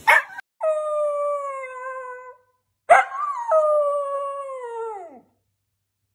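Dachshund howling: two long howls of about two seconds each, the pitch sliding slowly down, the second rising briefly and then dropping away at its end. A brief sharp sound comes right at the start.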